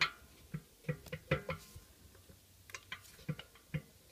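Scattered light clicks and knocks of metal engine parts being handled on a Honda GXV160 mower engine's open crankcase as the crankshaft is worked free. There are about eight short, separate taps across the few seconds.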